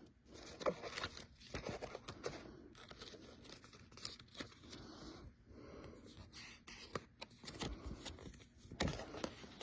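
Packaging being handled during an unboxing: scattered rustling, crinkling and small clicks and knocks throughout, faint overall.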